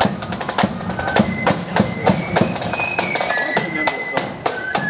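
Marching flute band playing: snare drums and a bass drum beat a quick march, with flutes carrying a high tune over them. The drum strokes are louder than the flutes.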